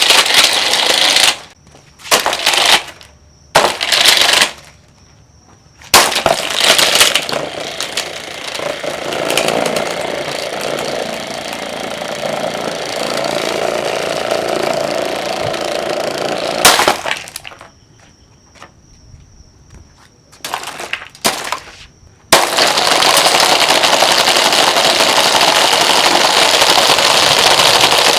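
A cheap plastic table fan being broken apart: loud bursts of cracking and clattering with short pauses between them, and a long stretch of continuous noise between the bursts. A steady loud noise takes over about two-thirds of the way through.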